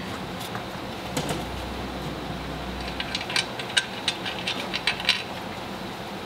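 A run of short, irregular clicks and taps, about a dozen over two seconds, as the front suspension parts around the steering knuckle are handled by hand; a low hum sits under the first half.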